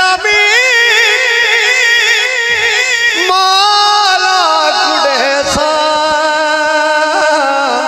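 A man singing a Punjabi devotional song in long, held, wavering notes.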